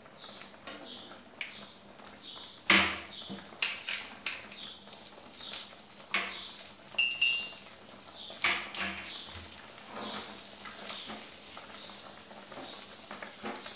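Metal utensils knocking and clinking against a nonstick frying pan as chopped nuts go in, a run of sharp knocks, the loudest about eight and a half seconds in. From about ten seconds on, the nuts sizzle steadily in ghee as they are stirred with a spatula.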